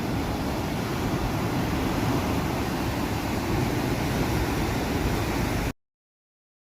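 Steady rushing noise of sea surf and wind at the shore, heavy in the low end. It cuts off abruptly to dead silence near the end, where the recording breaks off.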